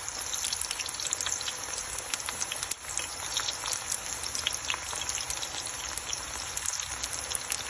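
Food sizzling in a hot pan: a steady hiss dotted with many small crackling pops.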